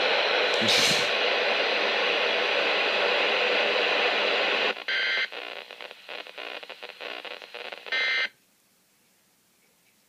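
Emergency Alert System audio played from a video on an iPod touch into a weather radio's input. A harsh, buzzing, static-like electronic screech runs for about four and a half seconds. Then comes a choppier stretch with two short screeching data bursts, and the sound cuts off abruptly about eight seconds in as playback is paused. These are the tones that set off the RadioShack 12-519's alert decoder.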